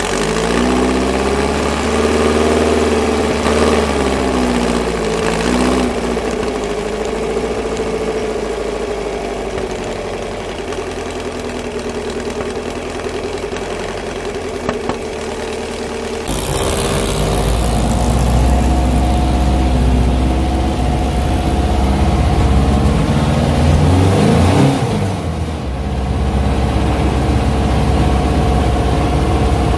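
VW Baja Bug engines running and revving while driving off-road on a dirt trail, the pitch rising and falling with the throttle. About sixteen seconds in the sound changes abruptly to a deeper, louder engine drone, with another rev up and down just before twenty-five seconds.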